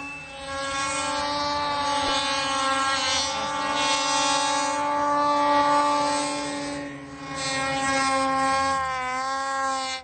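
Snowmobile engine running hard through deep powder: a steady, high-pitched engine whine whose pitch and loudness dip briefly about seven seconds in and fall again near nine seconds.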